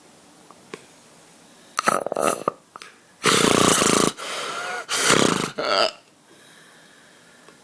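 A person snoring loudly: a few short bursts about two seconds in, then a long loud snore, a softer breath, and a second loud snore that ends about six seconds in.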